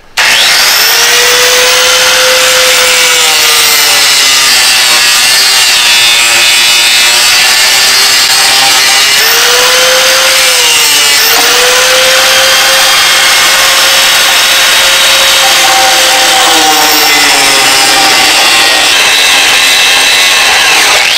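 Electric angle grinder with a flap disc grinding through a stripped steel bolt and nut on a tractor's battery cradle. It starts suddenly and runs continuously, the motor's whine sagging and recovering in pitch as the disc bites into the metal.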